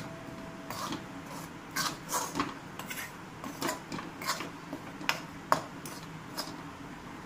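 Metal spoon scraping and clinking against a metal kadai in irregular strokes, stirring dry spice powders (coriander and red chilli) as they dry-roast on a low flame.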